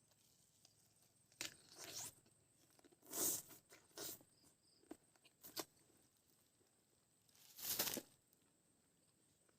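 A person eating a lemon: a series of short, sudden mouth sounds, with the loudest about three seconds in and just before eight seconds.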